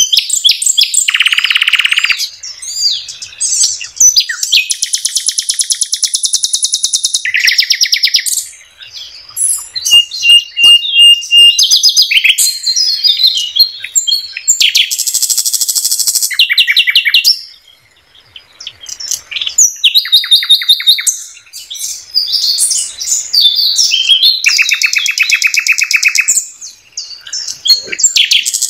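Nightingale (sikatan londo) in full song: a varied string of loud phrases with fast rattling trills of repeated notes, a short held whistle about ten seconds in, and brief pauses between phrases.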